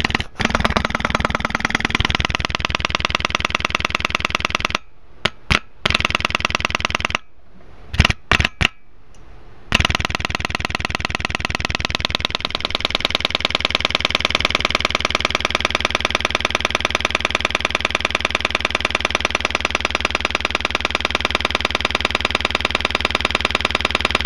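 A damaged Rockford Fosgate Crescendo midrange speaker, its cone cut open, driven hard into clipping and putting out a loud, fast, distorted pulsing buzz. Between about 5 and 10 seconds in it cuts out several times with sharp pops as its loose terminal connection breaks and remakes contact, then plays on steadily.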